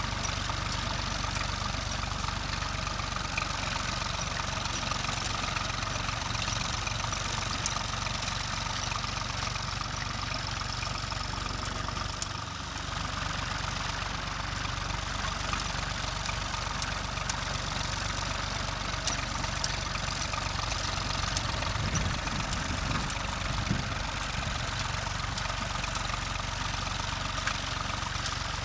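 Massey Ferguson 135 tractor engine running steadily under load as the tractor pulls and drives a rotary hay tedder.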